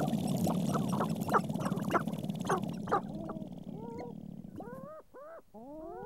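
Sharp-tailed grouse displaying on a lek: a fast, low, continuous rattle of stamping feet and rattling tail feathers under repeated short clucking calls. About four seconds in, the rattle fades and several rising, whining calls take over.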